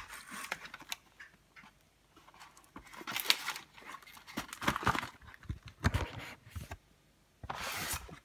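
Ready-meal packaging being handled: irregular rustling, crinkling and light knocks of cardboard and plastic as the tray is slid out of its cardboard sleeve, with a longer scraping rustle near the end.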